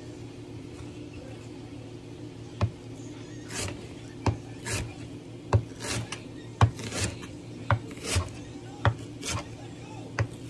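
Clothing rubbing and brushing against the phone's microphone, with a string of sharp knocks and short swishes about once a second, over a steady low hum.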